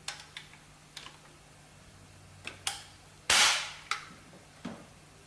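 Metal clicks from the 9A-91 rifle's folding stock and its latch being worked to close the stock: several small sharp clicks, then about three seconds in a louder half-second metal swish ending in a click as the stock swings shut and latches, and one more click after.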